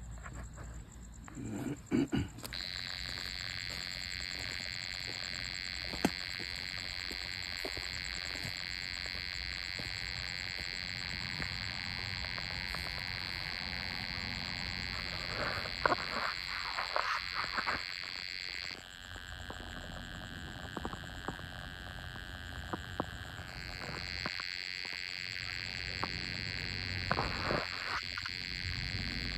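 A calling animal at night gives a steady, high-pitched buzzing drone that starts abruptly a couple of seconds in. It thins to a lower band for a few seconds past the middle, then returns in full. A few short rustles and knocks come near the start, in the middle and near the end.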